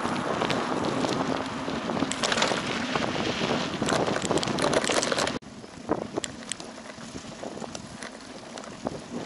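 Wind buffeting the microphone of a camera riding on a bicycle, with tyre noise on a dirt forest track and rattling clicks from the bike. A little over five seconds in, the wind noise drops off suddenly, leaving quieter tyre noise and rattles.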